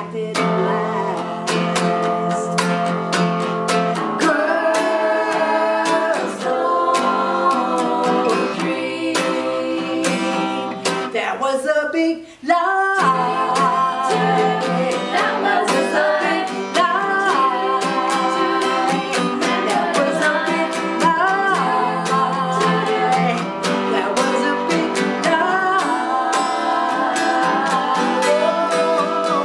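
Acoustic guitar strummed under several voices, a woman and a group of girls, singing a song together, with a brief dip in the sound about twelve seconds in.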